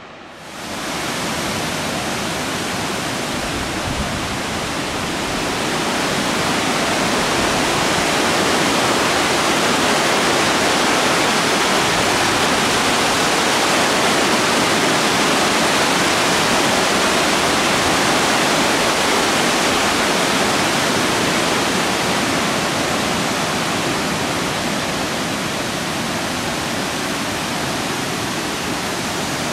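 Nugget Falls, a large waterfall, rushing loudly and steadily. The rush starts suddenly, swells a few seconds in, then eases a little near the end.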